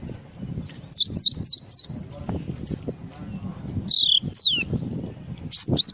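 Gelatik songbird singing: a quick run of four down-sliding chirps about a second in, two longer down-slurred whistles around four seconds, and a cluster of sharp chirps near the end, over a low background rumble.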